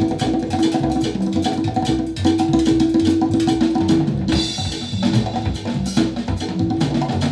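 Recorded music with a busy drum-kit beat and a steady held note, played through Wharfedale Denton 80 bookshelf speakers. A bright crash comes about four seconds in.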